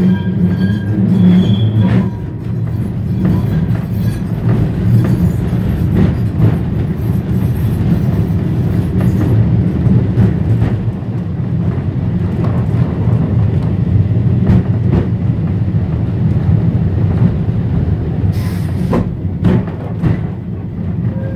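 Vintage electric tram running along its track, heard from inside the wooden saloon: a steady low rumble of motors and wheels with scattered clicks from the rail joints. A high whine of several tones at the start stops about two seconds in.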